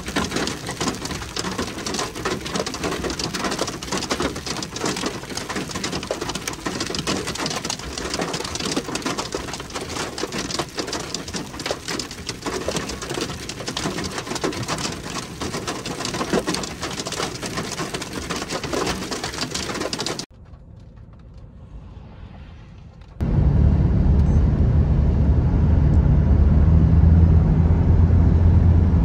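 Hail and rain falling, a dense patter of many small impacts on the ground. About twenty seconds in it cuts off, and after a few quieter seconds a steady low drone of a vehicle driving, heard from inside the car, takes over.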